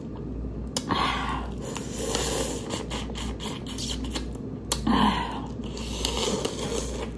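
Close-up mouth sounds of sucking the juice out of a boiled crawfish's head and shell: wet slurps and smacks, loudest about a second in and again about five seconds in.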